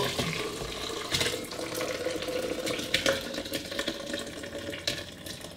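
Hot, unblended pumpkin soup poured from a stainless steel pot into a glass blender jug: a steady liquid pour splashing into the jug, with a few short knocks about one, three and five seconds in.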